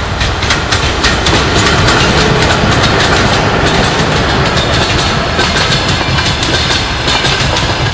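Passenger train running past at speed, its wheels clicking rapidly over the rail joints in a steady clatter.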